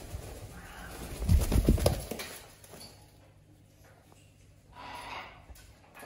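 Macaw's wings flapping in flight: a run of low, rapid wingbeats, about four a second, loudest between about one and two seconds in, then quieter.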